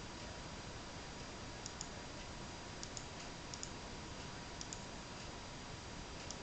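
Faint sharp clicks in close pairs, five pairs at uneven spacing of roughly a second, over a steady hiss with a thin whine.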